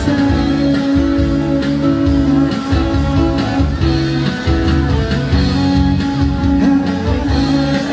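Music led by guitar, with held notes over a repeating bass line at a steady beat.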